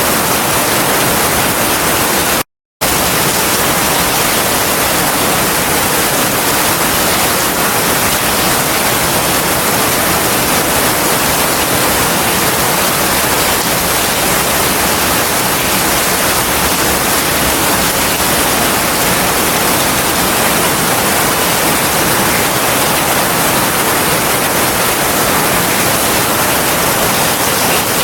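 Heavy rain falling as a steady, dense hiss. It cuts out completely for a fraction of a second about two and a half seconds in.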